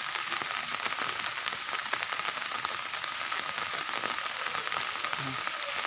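Heavy rain coming down hard, a steady dense patter of drops striking the umbrella canopy overhead.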